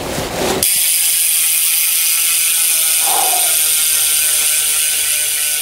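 Bicycle freehub ratchet buzzing steadily as the rear wheel spins freely, the pawls clicking too fast to count.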